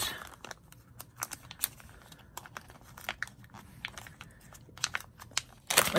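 Clear plastic die packaging sleeve crinkling and crackling as hands handle and open it, a string of irregular small crackles.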